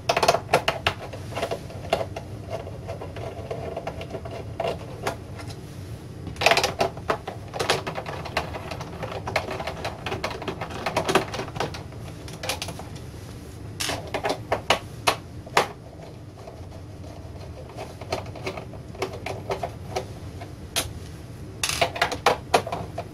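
Hand screwdriver backing out the screws that hold a metal stand bracket to an LCD monitor's plastic back: scattered bursts of clicking and rattling of metal and plastic, with quieter stretches between.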